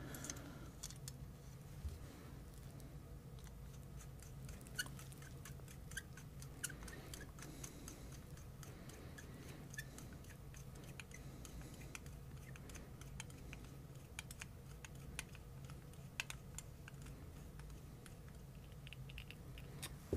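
Faint, scattered small metallic clicks and ticks of a screwdriver blade working in the fuel nozzle as it is threaded back into a Briggs & Stratton Flo Jet updraft carburetor, over a steady low hum.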